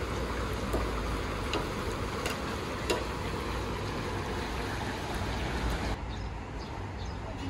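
Julienned carrots frying in oil in a large kazan, a steady sizzle, with a few sharp clinks of the metal skimmer against the pot as they are stirred. About six seconds in it gives way to a quieter open-air background.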